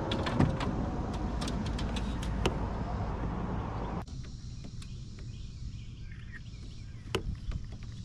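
Kayak paddle strokes splashing in the water, with wind on the microphone. The sound drops away suddenly about four seconds in, leaving quieter water and a single knock near the end.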